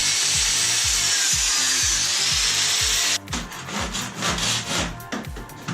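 A power tool running steadily while cutting into the computer, a loud even high-pitched hiss that cuts off about three seconds in. Irregular scraping strokes follow, over music with a steady low beat.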